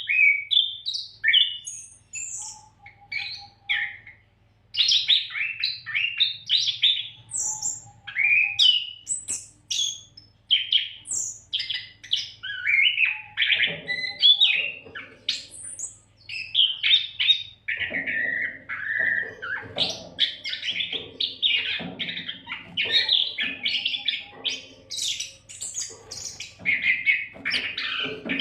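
Oriental magpie-robin (kacer) singing vigorously without a break, a varied run of whistles, chirps and quick trills. A faint steady hum sits underneath.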